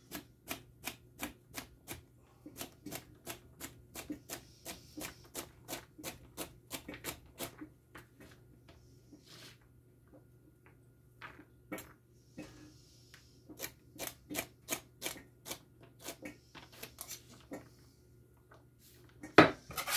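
Knife dicing celery on a cutting board: a steady run of sharp chops, about three a second, that pauses for a few seconds around the middle and then resumes, with one louder knock near the end.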